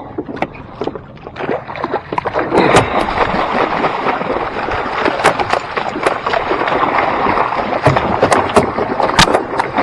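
A hooked wahoo thrashing at the surface alongside a small outrigger boat, throwing up heavy splashing and spray. The splashing is dense, with many sharp slaps against the water, and grows loud about two and a half seconds in.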